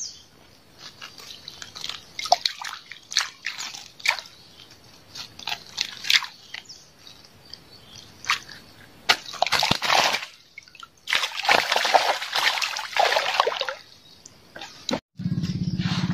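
Water splashing and sloshing in irregular bursts at the waterside, heaviest around ten and twelve seconds in. Near the end the sound cuts and a steady low hum takes over.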